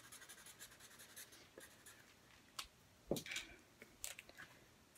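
Felt-tip markers colouring quickly on paper in rapid short strokes. A light knock comes about two and a half seconds in and a louder one about three seconds in.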